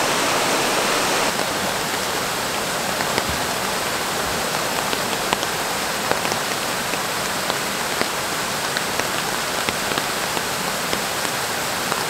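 Steady rain falling on a rainforest creek pool, a continuous hiss of water with many separate drops ticking close by. For about the first second the louder rush of a waterfall, which cuts off suddenly.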